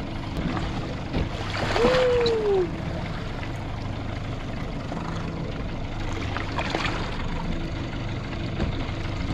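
Boat engine idling steadily under water and wind noise. About two seconds in there is a brief louder rush carrying a short tone that rises and then falls.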